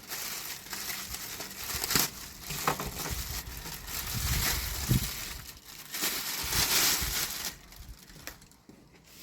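The wrapping bag around a new CV axle being cut open and pulled off: continuous crinkling and rustling with a few sharp knocks, dying down near the end.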